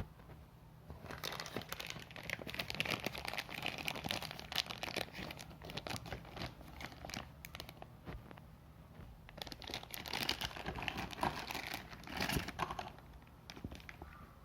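Plastic packaging being crinkled and rustled by hand, a dense run of crackles and small clicks that comes in two busier spells.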